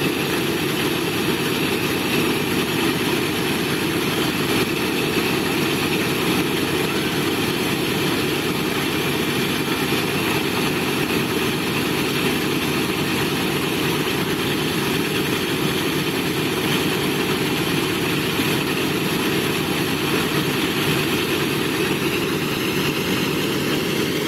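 B-17 Flying Fortress's Wright R-1820 Cyclone radial engines idling steadily, propellers turning slowly.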